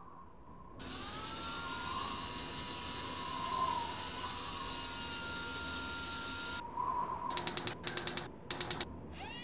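Sound effect of a Mars rover mechanism. An electric motor whine rises in pitch, runs steadily for several seconds and stops abruptly, followed by short bursts of rapid ratcheting clicks.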